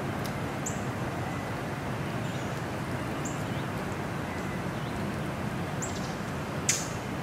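Steady distant outdoor rumble, with a bird giving a short high chirp about every two and a half seconds, the last one louder, near the end.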